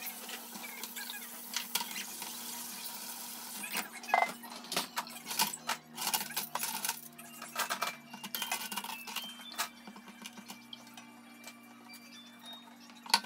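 Dishes and silverware clinking and clattering as they are handled and put away, the knocks bunched in the middle of the stretch, over a steady low hum.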